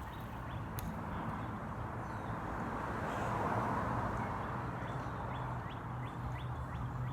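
BMX bike tyres rolling on pavement, the rolling noise swelling about three and a half seconds in as the bike passes closest. A low steady hum runs underneath, and there are faint short chirps near the end.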